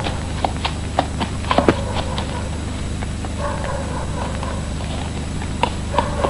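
Irregular knocks like hoof clops on a hard road, over a steady low hum, with a short pitched sound about three and a half seconds in.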